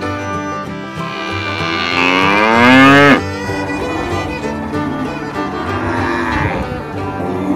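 Cow mooing: one long, loud moo that rises in pitch and cuts off sharply about three seconds in, then a quieter moo a few seconds later. Background string music plays throughout.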